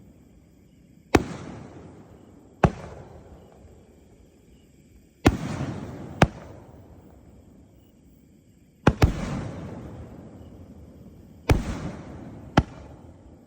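A 3-inch, 36-shot display-shell fireworks cake firing. About eight sharp booms come every second or so, some in close pairs, each trailing off in a long rolling echo.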